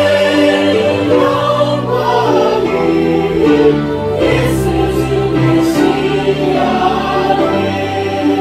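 A church congregation singing a Korean praise hymn together, with long held notes in chords.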